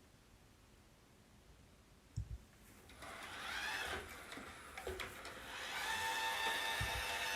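Roomba robot vacuum starting up: a couple of knocks about two seconds in, then its motors whirr with a steady whine that grows louder toward the end.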